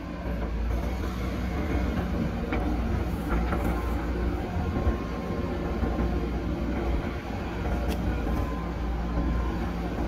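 JCB backhoe loader's diesel engine running steadily under load while the hydraulic arm dumps and digs soil, with a few faint clanks.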